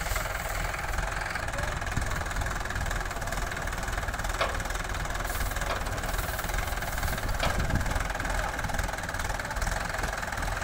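Mahindra tractors' diesel engines running steadily at low revs.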